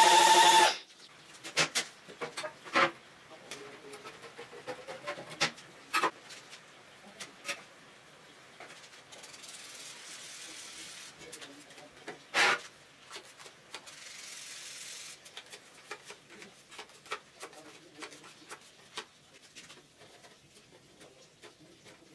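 A loud pitched sound cuts off suddenly in the first second, followed by scattered clicks and knocks of hand work on parts, with two short stretches of soft rubbing hiss and one sharper knock about twelve seconds in.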